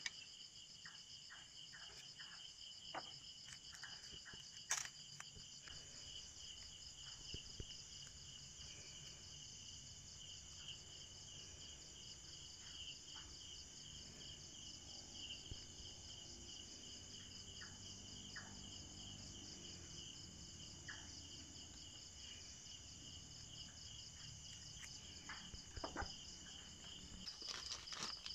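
Faint, steady high-pitched insect chorus with a fine pulsing trill, with scattered small clicks and taps, the sharpest about five seconds in.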